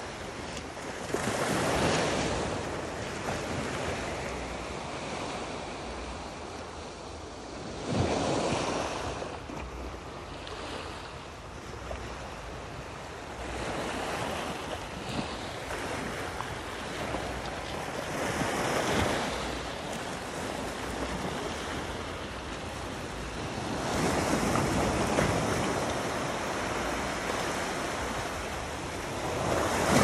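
Small sea waves breaking and washing up on a pebble beach. They swell and ebb every five to six seconds, with one sharper break about eight seconds in.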